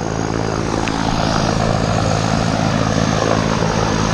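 Propeller engines of a skydiving jump plane running steadily on the ground, a constant droning hum that does not change.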